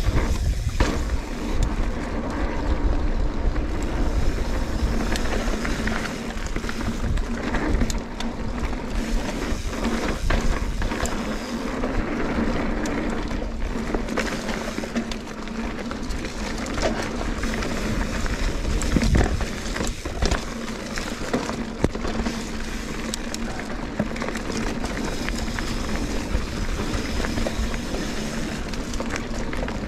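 Trek Fuel EX 8 full-suspension mountain bike ridden along a dirt trail: tyres rumbling over the ground, with frequent knocks and rattles over bumps and wind on the microphone. A steady buzz runs underneath.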